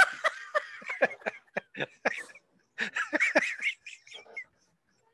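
Helpless laughter, so hard the laugher can barely breathe: quick short bursts of high squeaks and gasping breaths, dying away near the end.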